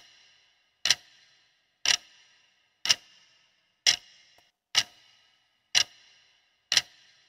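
Clock-tick sound effect of a quiz countdown timer: sharp ticks once a second, eight in all, each with a brief ringing tail, marking off the seconds left to answer.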